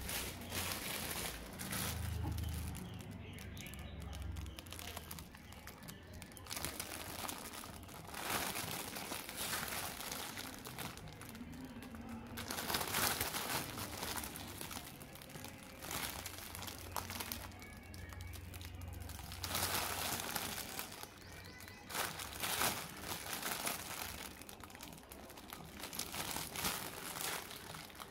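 Clear plastic film wrapped around a toy car crinkling in irregular bursts as it is handled.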